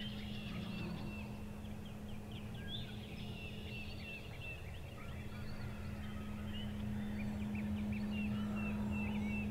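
Wild turkeys gobbling in the distance, over many short high bird chirps throughout and a steady low hum.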